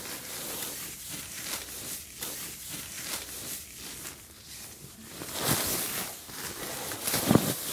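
Marmot CWM down sleeping bag being pressed and bunched up by hand, its shell fabric rustling and swishing in uneven strokes, louder from about five seconds in.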